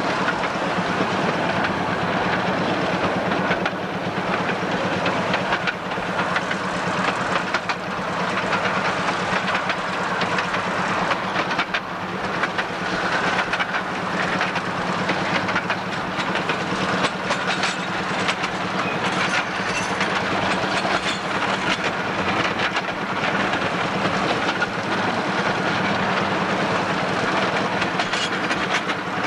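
10¼-inch gauge miniature railway train running steadily, heard from aboard: wheels clattering and rattling over the track with a continuous running rumble.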